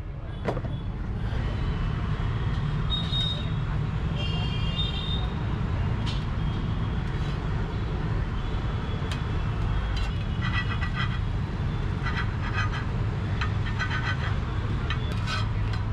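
Metal spatula scraping and tapping on a flat iron griddle (tawa), with quick runs of clacks about ten seconds in as the spatula edge chops the egg cutlet on the griddle. A steady low rumble of street traffic or burner noise runs underneath.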